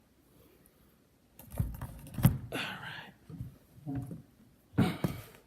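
Knocks and thumps as a box and its contents are handled and set down, with a brief scrape. The two loudest thumps are about two and five seconds in.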